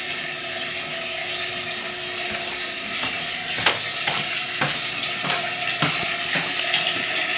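Footsteps going down wooden basement stairs, about two steps a second from the middle on, over a steady hiss of water running into the flooding basement.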